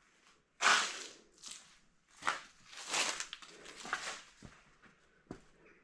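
Footsteps at a walking pace, about five steps, each a short scuffing crunch.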